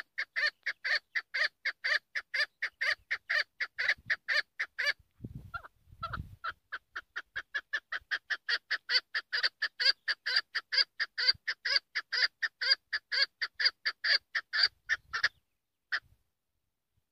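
Chukar partridge calling: a fast, even run of short clucking 'chuk' notes, about five a second. The calls break off for about a second some five seconds in, where a low rumble is heard, then resume and stop about fifteen seconds in, with one last note a second later.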